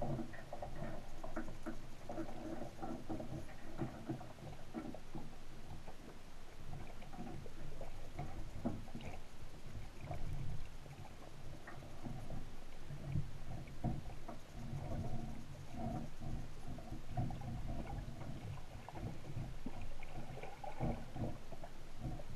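Underwater ambience picked up by a camera in a waterproof housing on the seabed: a continuous muffled low rumble of moving water, with many small irregular clicks and knocks throughout.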